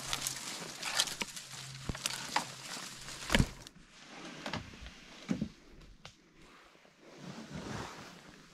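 Footsteps pushing through dry brush, with twigs crackling and snapping underfoot and branches brushing against clothing. One loud crack comes about three and a half seconds in, after which the steps grow quieter with only scattered snaps.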